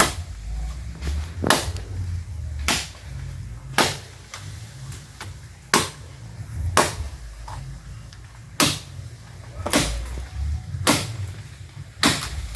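Axe chopping wood: about ten sharp blows, roughly one a second with a few longer pauses.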